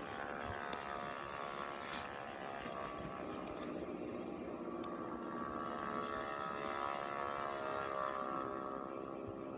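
Sustained droning tone with many overtones, slowly shifting in pitch over a hiss, from a VHS tape soundtrack played through a TV's speakers. There is a brief crackle about two seconds in.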